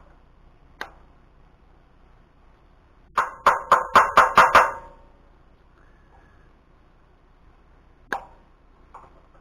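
Cotter pin being tapped home with a small hammer: a quick run of about eight ringing metal-on-metal taps, with a few single clicks from the work before and after.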